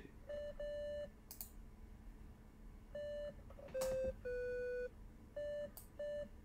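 BeSpoke Synth software oscillator set to a square wave, sounding short synth beeps. There are about seven notes at two close pitches, with a few faint clicks between them.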